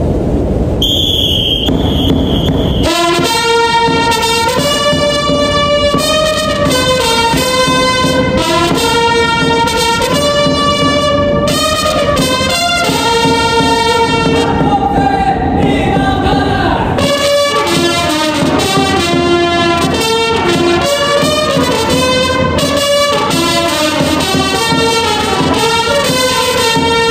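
Several multitracked trumpets playing Japanese baseball batter cheer songs (Hanshin Tigers ōendan style) over a drum beat. They come in about three seconds in, after a short noisy rush.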